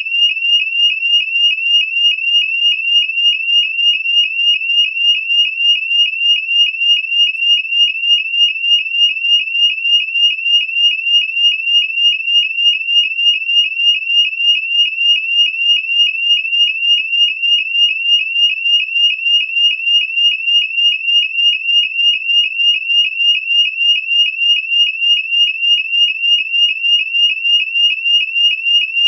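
White electronic fire alarm sounder sounding a shrill, high-pitched tone that sweeps quickly and repeatedly, about three sweeps a second, without pause.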